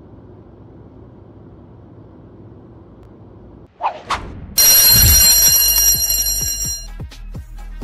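Electric school bell ringing loudly for about two seconds, preceded by a short rising whoosh about four seconds in and by faint room hum before that.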